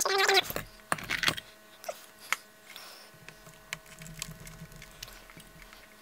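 A brief murmured voice at the very start, then scattered light clicks and taps of small screws and tools being handled while a transistor radio's chassis is put back together.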